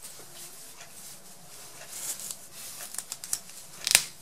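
Soft rustling and small ticks as hands work thread around a fleece-covered foam ball, tying off loops to secure it, with a few light clicks and one sharp, louder click near the end.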